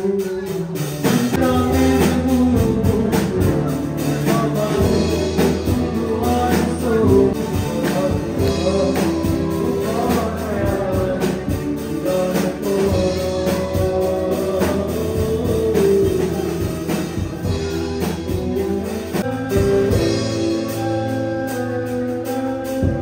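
Live band playing a song: a male vocalist singing over electric guitar and keyboard, with a steady beat. The full accompaniment comes in about a second in.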